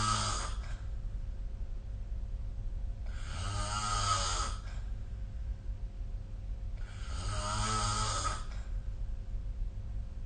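A sleeping person snoring in a slow, regular rhythm, each snore lasting about a second and a half. One snore tails off at the start, then two full snores come about three and seven seconds in, over a steady low hum.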